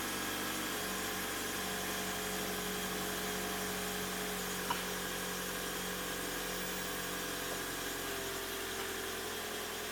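Toyota C-HR's 2.0-litre four-cylinder engine idling steadily, with an aftermarket Quantum intake VVT solenoid just fitted and no check engine light triggered.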